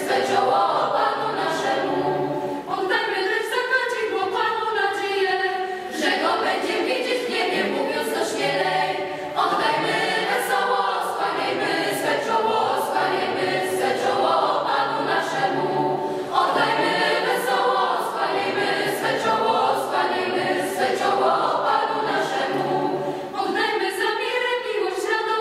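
Mixed youth choir of girls' and boys' voices singing a Christmas carol without accompaniment, in phrases with short breaks between them.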